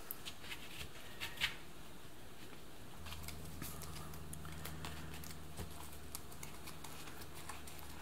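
Faint, scattered light clicks and taps of hands handling and turning over the plastic barrel-plate assembly of an IBM Model F keyboard, with its foam sheet. A low steady hum starts about three seconds in.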